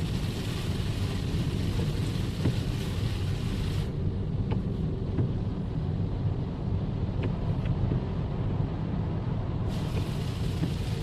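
Steady rain with a low rumble of wind on a phone microphone. The sound turns duller about four seconds in and brightens again near the end.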